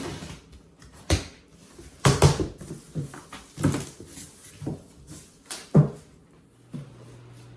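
Shipping box and packing being opened and handled: a string of separate knocks and thumps with short rustles. A steady low hum sets in near the end.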